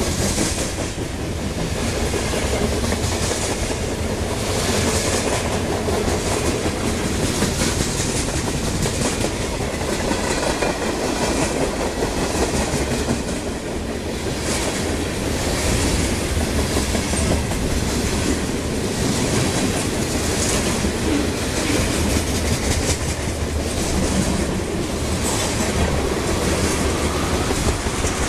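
Freight train of covered hoppers and tank cars rolling past close at speed: a steady rumble and hiss of wheels on rail, with a clickety-clack of wheels over the rail joints repeating in regular groups about every second and a half.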